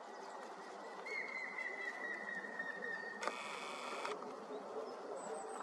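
Eurasian jay giving one harsh, rasping screech of just under a second, about three seconds in, after a thin wavering tone; a steady low background noise runs underneath.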